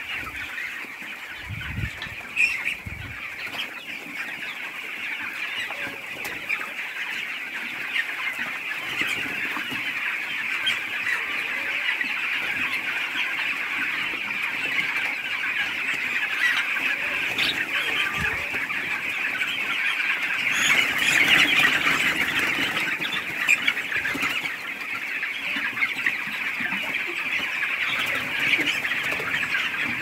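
A large flock of 20-day-old chicks peeping and cheeping together in a dense, continuous high chorus, swelling a little about two-thirds of the way through.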